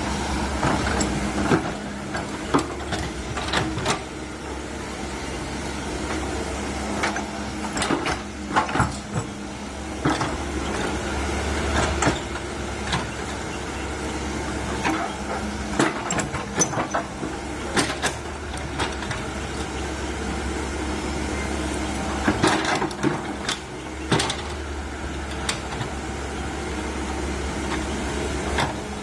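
Komatsu PC130 hydraulic excavator's diesel engine running steadily while digging, with frequent sharp knocks and clanks at irregular intervals as the bucket works the ground and stump.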